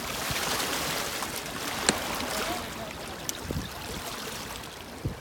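River water washing against shoreline rocks, a steady hiss, with a sharp click about two seconds in.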